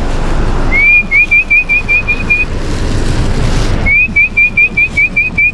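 A person whistling to call a dog: a rising note followed by a quick run of short repeated chirps, about five a second, given twice.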